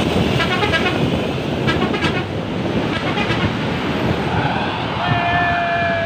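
Bus 'telolet basuri' melody horn sounding three short runs of quick notes, then holding one steady note for about a second near the end. Heavy wind buffeting the microphone and traffic noise run underneath.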